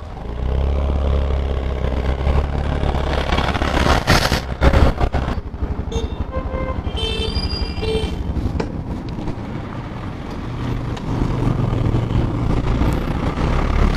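Scooter riding on a road: a steady engine-and-wind rumble, with a loud rush about four seconds in. A vehicle horn beeps a few times around six to nine seconds in.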